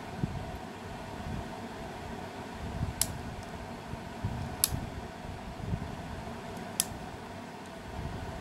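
Plastic arms of a JJRC H49 SOL foldable mini drone being folded in by hand, with three sharp clicks as arms snap into their folded position, over a steady background hum.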